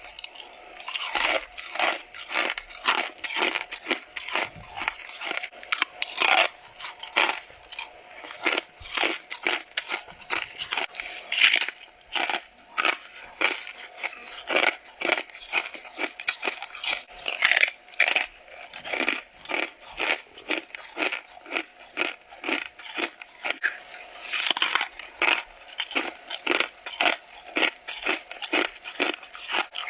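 Biting and chewing freezer frost: a rapid run of crisp, squeaky crunches, a few every second.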